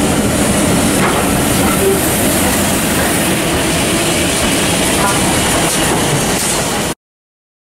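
A train of coaches with GWR King class steam locomotive 6023 moving past, with a steady rumble of wheels on rail and clicking over rail joints. The sound cuts off suddenly near the end.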